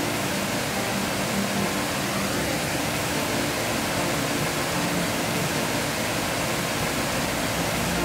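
Waterfall pouring over rock ledges into a pool: a steady, even rush of falling water.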